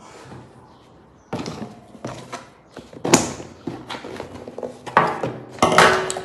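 Cardboard box and paper packaging being handled and opened: rustling and scraping with a few sharp knocks, starting about a second in.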